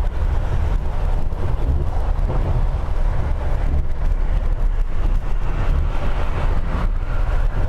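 Double-decker coach driving at highway speed: a steady low rumble of engine and tyres with an even hiss above it.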